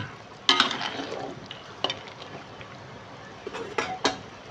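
Metal ladle stirring chicken broth in an aluminium wok, scraping and clinking against the pan a few times, with the loudest knock about half a second in and two more near the end as the ladle comes out, over a steady low hiss.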